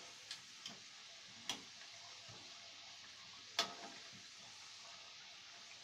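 Kachoris frying in oil in a steel kadhai, a faint steady sizzle, with a perforated steel skimmer clinking against the pan about four times as they are turned; the loudest clink comes about three and a half seconds in.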